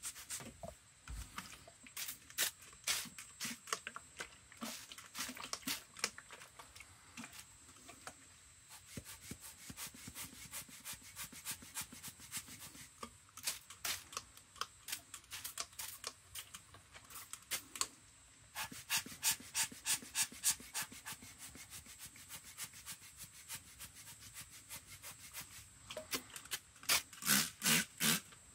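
Trigger spray bottle spritzing water onto watercolour paper in runs of quick squirts, about four a second at times, the loudest run near the end. Around the start a rubber air-blower bulb is being squeezed over the paper.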